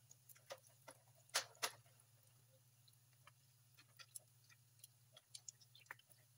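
Hot oil crackling around spring rolls deep-frying in a pan: faint, irregular pops and ticks, with two louder pops about a second and a half in, over a faint steady low hum.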